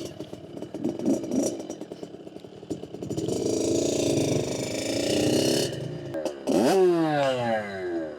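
Dirt bike engine running and revving as the bikes ride off. The engine note rises sharply about six and a half seconds in, then falls away near the end.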